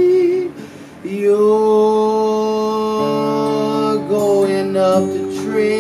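A man singing long, held, wordless notes that shift pitch every second or so, accompanied by acoustic guitar. The sound dips briefly about half a second in.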